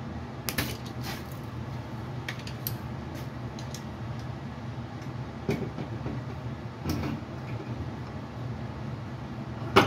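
Scattered short clicks and knocks from dent-pulling work on a pickup truck's sheet-metal box side, welding pins on and pulling them, over a steady low hum.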